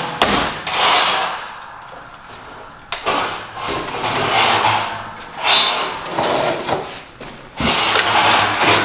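Folding wooden attic ladder being pulled down and unfolded: wooden knocks and thuds as the sections swing open, with scraping rasps between them. The sharpest knock comes right at the start, with others about three and seven and a half seconds in.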